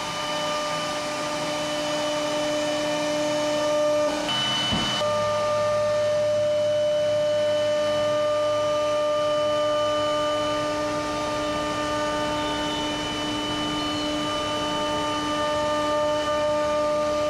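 CNC router spindle running with a steady, even whine as its bit carves a wooden plank, briefly disturbed about four seconds in before settling back to the same steady whine.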